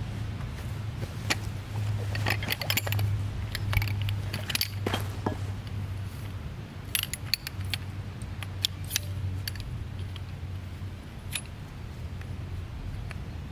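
Small metal objects clinking and rattling in irregular clicks, denser in the first half, over a steady low hum.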